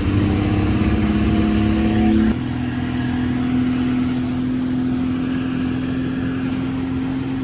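Outboard boat motor running under throttle, its pitch rising slightly. About two seconds in the sound changes abruptly to a steadier engine note.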